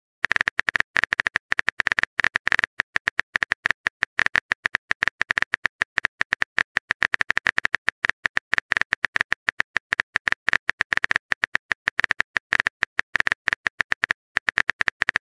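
Keyboard-typing sound effect: a fast, uneven run of sharp clicks, several a second, one per letter as a text message is typed.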